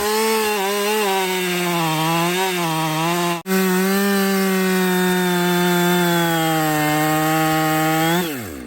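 Ported Husqvarna 572 XP chainsaw running at full throttle while cutting oak, its pitch wavering slightly under load. A momentary dropout comes about three and a half seconds in; near the end the throttle is released and the revs fall quickly.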